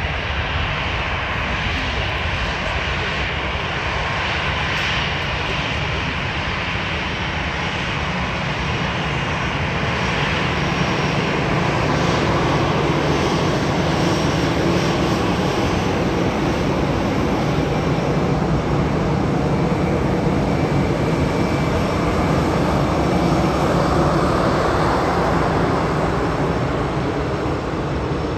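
Twin-engine easyJet Airbus A320-family jet taxiing past, its turbofan engines at low taxi power: a steady jet rumble and whine that grows louder about halfway through as the aircraft draws nearest.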